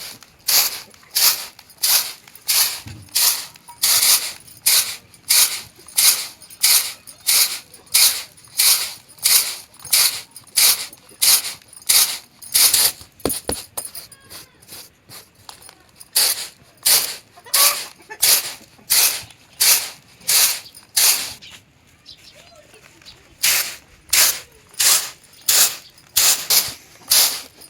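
A steady run of sharp strokes, about two a second, in three runs broken by two short pauses, like repeated strikes of a hand tool in work.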